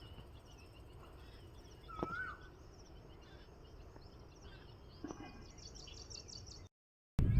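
Several small birds chirping and twittering over outdoor background noise, with one clear rising-then-falling whistled call about two seconds in. Near the end the sound cuts out briefly, then a much louder rough noise begins suddenly.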